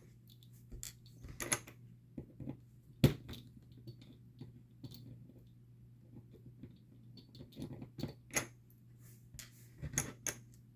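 Scattered small clicks and taps of tiny metal parts being handled: screws being taken out of an aluminium beadlock wheel for a 1/24-scale RC crawler, with one sharper click about three seconds in.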